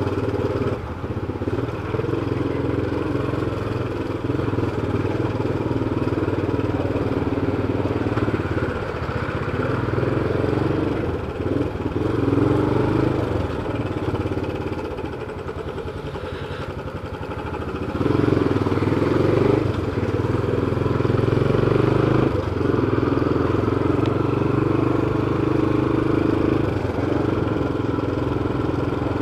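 Yamaha Fazer 250's single-cylinder engine running as the motorcycle rides slowly through town traffic. It eases off and quietens a little past the middle, then picks up sharply under acceleration.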